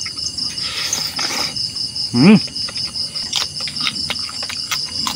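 Night insects chirping in a steady, high, evenly pulsing trill. A man's short voiced sound comes about two seconds in, and a few faint clicks follow.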